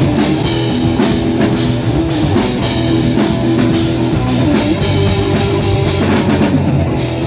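Rock band playing an instrumental passage with no singing: drum kit beating a steady rhythm under guitar.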